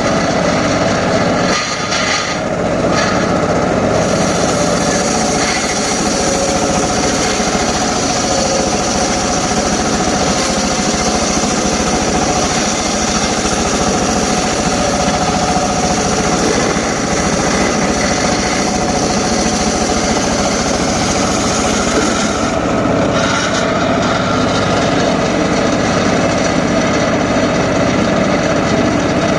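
Homemade circular saw running steadily while cutting short teak logs, with brief changes in its sound about two seconds in and again near 23 seconds.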